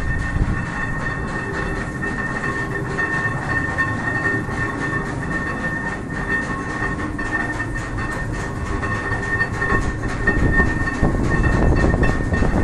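The machinery of the brick tower windmill De Jager running inside the mill: a steady rumble with a rapid, irregular clatter, like the wooden gearing and shafts of a turning mill, and a steady high whine over it.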